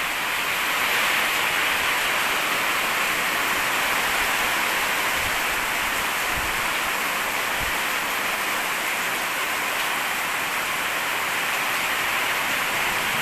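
Heavy rain pouring steadily onto a concrete courtyard and roofs, an even, unbroken hiss of downpour.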